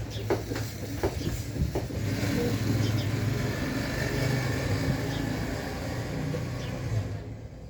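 A steady low engine hum with road-type noise, like a motor vehicle running close by, with a few sharp clicks in the first two seconds. It cuts off suddenly near the end.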